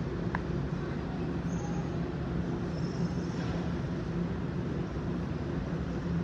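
New York City subway train rumbling steadily in the tunnel, with a brief high squeak about half a second in.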